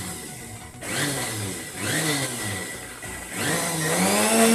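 A Sujata mixer grinder run in short pulses: the motor speeds up and slows down about three times, and the last and longest pulse comes near the end. It is whipping egg white and sunflower oil into mayonnaise as the mix thickens.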